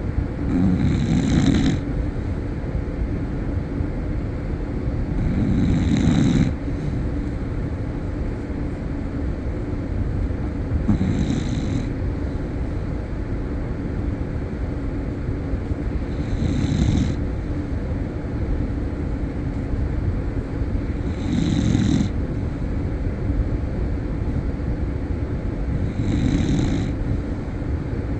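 Snoring: a loud snore about every five seconds, six in all, each lasting a second or so, over a steady low hum.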